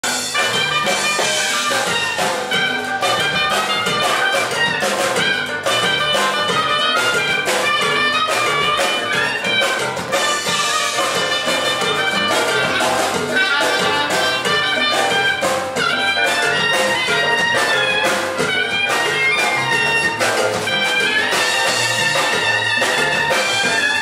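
Live jazz band playing a jazzy, sultry number, with drums keeping a steady beat.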